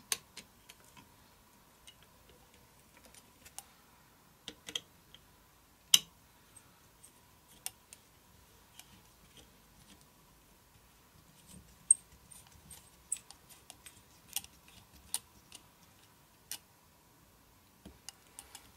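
Small screw and thin precision screwdriver clicking and tapping against a carbon-fibre quadcopter frame and its plastic tensioner part while the screw is fitted and turned in. Irregular light clicks, the sharpest ones a few seconds apart.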